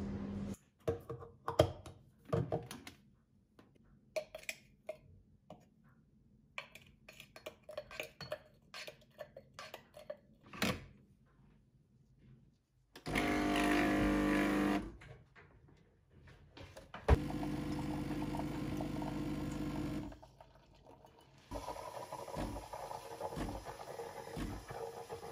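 De'Longhi pump espresso machine in use: a run of clicks and knocks as the machine and cup are handled, then the pump buzzing steadily twice for a few seconds each. Near the end the steam wand hisses into a steel milk jug while frothing milk.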